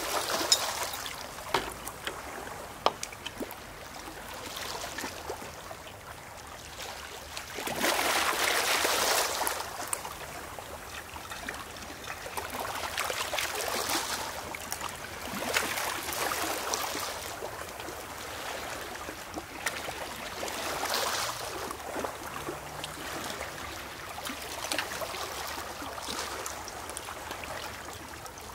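Small sea waves washing in and out over a pebble shore, swelling every few seconds, with a thin stream of water trickling from a metal bucket through a funnel into a glass bottle. A few sharp clinks in the first seconds.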